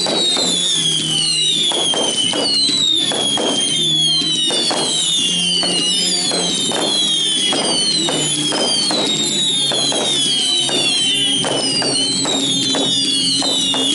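Fireworks going off in a rapid string of overlapping shrill whistles, each falling in pitch, with sharp pops crackling between them throughout.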